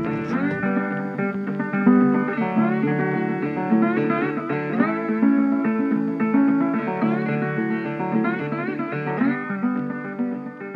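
Background music: a guitar tune of plucked notes, some sliding in pitch.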